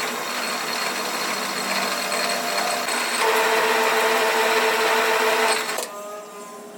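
A power tool running steadily; about three seconds in it gets louder with a steady whine, then eases off again near the end.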